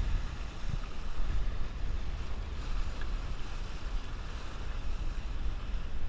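Wind buffeting the microphone with a steady low rumble, over water rushing and splashing along the hull of a Sunfish sailboat moving fast through chop in strong wind.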